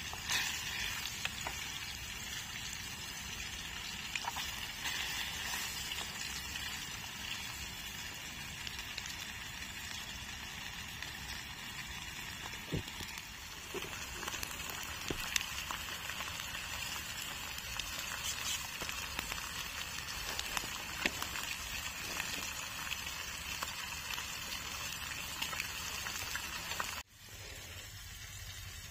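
Food frying in hot oil in a pan: a steady sizzle with scattered crackles and pops. It cuts off suddenly about two seconds before the end, giving way to a quieter, different background.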